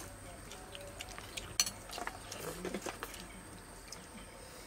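Metal spoons clinking now and then against ceramic soup bowls as people eat soup: scattered short, sharp clinks.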